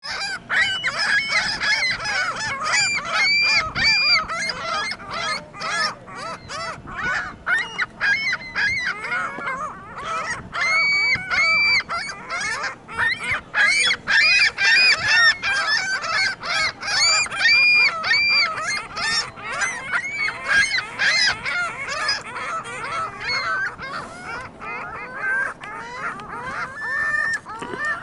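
A flock of ring-billed gulls calling together: many overlapping cries, one after another without pause.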